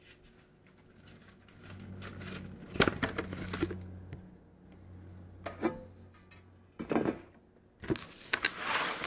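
Handling noise: a series of knocks and clatters as kitchen things and the camera are moved about by hand, with a low steady hum for a few seconds in the middle.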